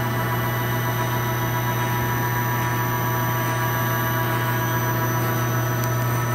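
Steady machine hum with several held tones, unchanging throughout, from the powered-up Mori Seiki Duracenter 5 CNC vertical machining center.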